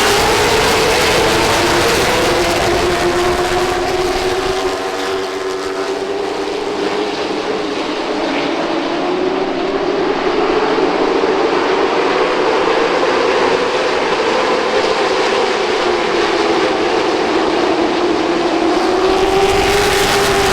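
A field of short-track stock cars running laps, their V8 engines heard together as a loud, layered drone. The pitch dips a few seconds in, climbs again past the middle, then falls and rises once more near the end as the cars brake into the turns and accelerate off them.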